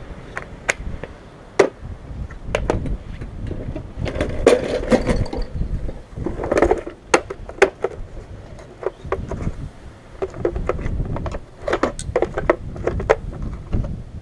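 Bahco socket set being handled: a plastic case clacking as it is set down and opened, and metal sockets clinking as they are picked out, in a run of irregular clicks and knocks. Wind rumbles on the microphone underneath.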